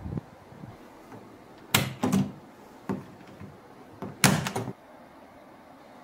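The metal clasp locks of a large metal-framed hard-shell suitcase clicking open, then the case being opened: a few sharp clicks and knocks, with the loudest cluster a little after four seconds in.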